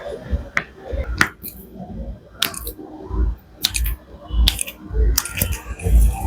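Hands-on chiropractic manipulation: about ten sharp clicks at irregular intervals, with dull thumps between.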